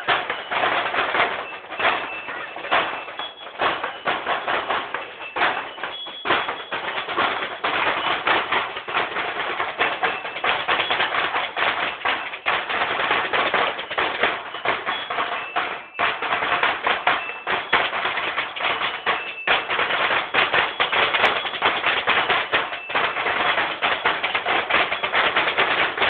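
Beatboxing: a young man making a dense, unbroken run of percussive mouth clicks and beats, with his hands cupped over his mouth.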